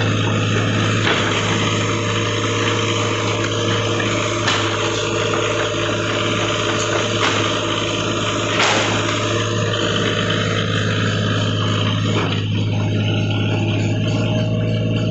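Komatsu PC40UU mini excavator's diesel engine running steadily, with two sharp knocks, about four and a half and eight and a half seconds in.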